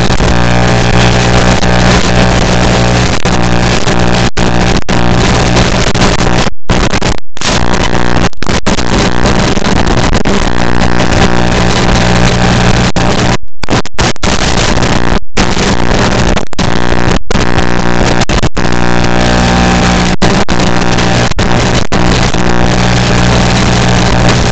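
Steady, loud electrical buzz with a hiss over it, the noise on an analog FPV video receiver's audio channel, that cuts out briefly a dozen or so times as the video link drops.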